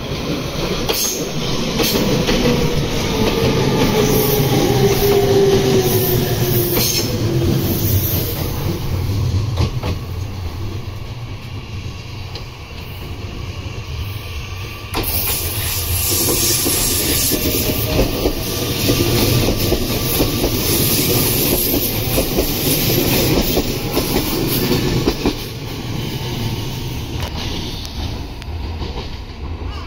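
Red Meitetsu electric trains running past, wheels clattering over the rail joints. A motor whine falls slowly in pitch over the first several seconds.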